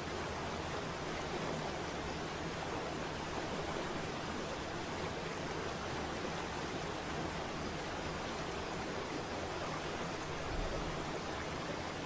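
Waterfall: a steady, even rush of falling water with no change.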